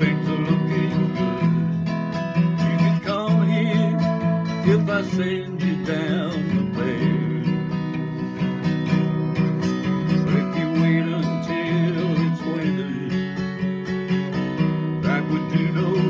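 Acoustic guitar strummed steadily, with a man's voice singing along over it at times.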